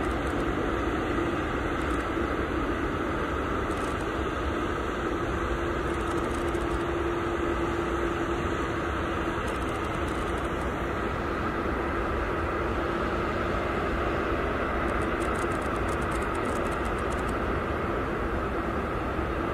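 Antonov An-225 Mriya's six turbofan engines on landing approach: a steady drone with a held whine over it.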